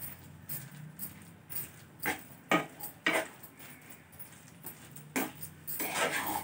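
A steel spoon scrapes and clinks against a nonstick kadhai while it stirs and breaks up soft cooked dal. There are several short strokes a second or so apart, the loudest near the end.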